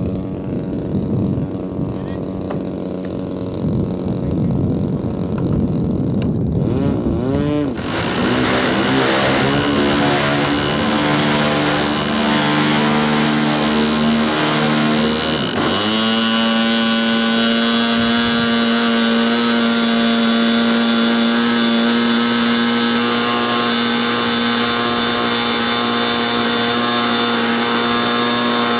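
Model airplane's two-stroke glow engine on a SIG Kadet LT-40, being spun with an electric starter and running on a rich break-in setting. The pitch wavers and climbs in the first half, dips and swoops back up about halfway, then holds a steady high-pitched run.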